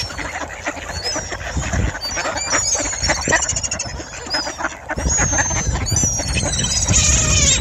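A dense flock of mallard ducks calling and chattering at close range while being fed, with higher gliding bird calls over them. A low rumble grows louder about five seconds in.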